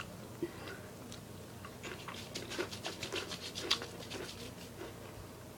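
Crunchy chips being chewed close to the microphone: a run of quick crackling clicks starting about two seconds in and lasting about two seconds.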